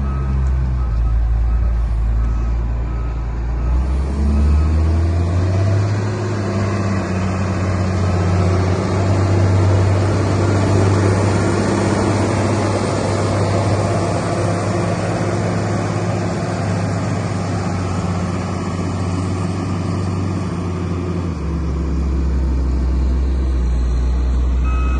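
Case 821C wheel loader's diesel engine running as the machine drives, the engine note rising about five seconds in, holding higher, then dropping back near the end. A reversing alarm beeps briefly at the start.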